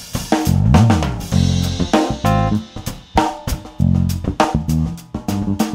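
Intro theme music: a drum kit keeps a steady beat with kick, snare, hi-hat and cymbals over sustained bass notes, played loud.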